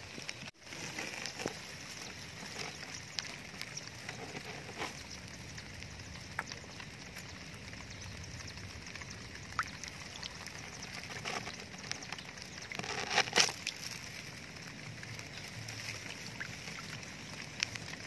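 Water sloshing and splashing as a large fish moves through a shallow, grassy puddle, with scattered sharp splashes over a steady hiss and the loudest cluster of splashes about 13 seconds in.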